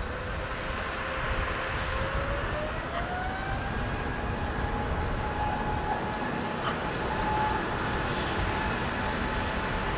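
Airbus A350's Rolls-Royce Trent XWB jet engines spooling up to takeoff thrust over a steady rumble. A whine rises in pitch about two to four seconds in, then holds steady as the takeoff roll begins.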